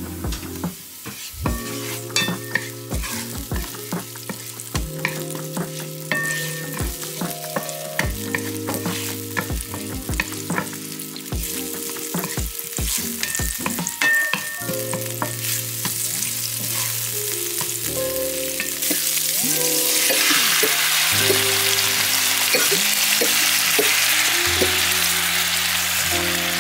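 Chopped chilies and garlic frying in oil in a ceramic pan, with a wooden spatula clicking and scraping against the pan. About three-quarters of the way through, squid and shrimp go into the hot oil and a loud sizzle takes over.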